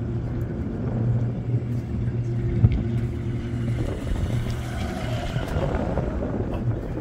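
Steady low hum and rumble of a moving aerial cable car cabin on the Montserrat line, heard from inside the cabin. It swells briefly about five seconds in as the opposite cabin passes.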